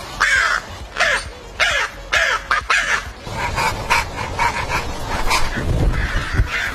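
An animal calling over and over: about six loud calls in the first three seconds, then a run of quicker, shorter calls.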